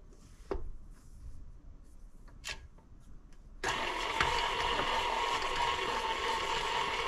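A couple of sharp knocks as the spatula scrapes the beater and the mixer head comes down. Then, about three and a half seconds in, a KitchenAid tilt-head stand mixer switches on and runs steadily, its motor humming as it beats softened butter with brown and white sugar.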